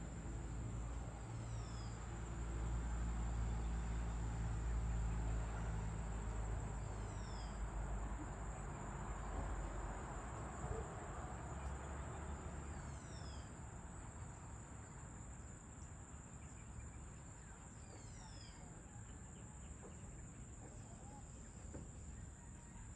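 Insects, crickets by the look of it, keep up a steady high-pitched drone. A short falling whistle, from a bird, comes about every six seconds. A low rumble underneath fades out about halfway through.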